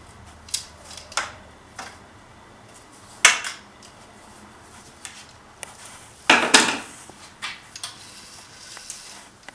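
Scattered clinks and knocks as corral panel legs are untangled and handled, a few small hits with louder ones about three seconds in and just past six seconds.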